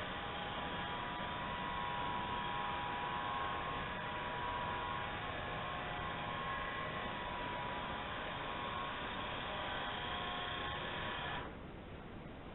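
Robot vacuum cleaner's motors running with a steady hum, then cutting off sharply near the end, leaving a fainter hiss.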